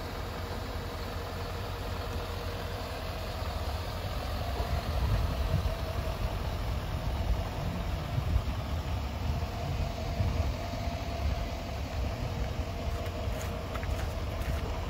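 2018 Chevrolet Silverado 3500 heavy-duty pickup's engine idling steadily, with a few light clicks near the end.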